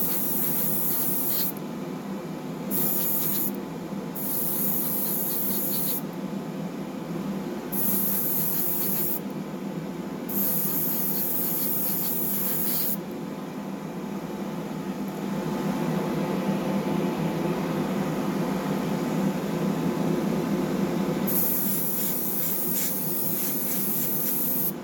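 Airbrush spraying paint in repeated short hissing bursts, with a longer pause midway, over the steady hum of a small airbrush compressor.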